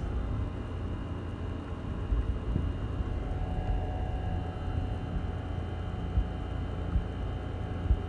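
Steady low background rumble with faint steady tones, broken by a few soft low thumps.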